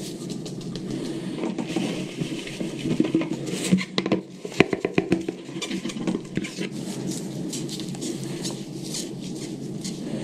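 Damp black powder composition being rubbed through a steel mesh strainer by gloved hands to granulate it: a steady gritty scraping with granules pattering onto a plastic tray. A run of louder clattering knocks comes about four seconds in.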